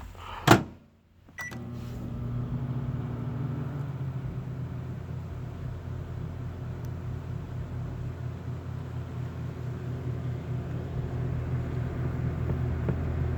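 A sharp click, then about a second and a half in a microwave oven switches on and runs with a steady low hum.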